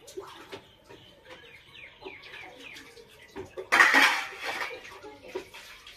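Small stainless-steel toy pots, plates and utensils clinking and tapping against each other in a string of light metallic clicks. A louder, harsher burst of noise lasting about a second comes just past the middle.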